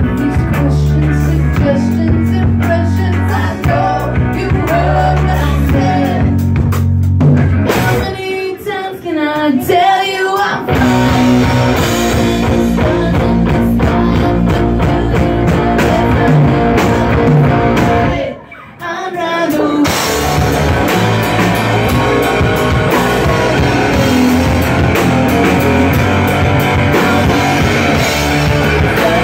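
A live rock band playing, with electric bass, electric guitar and a drum kit, and a woman singing. The band cuts out briefly about eight seconds in and again for about a second near two-thirds of the way through, then comes back in full.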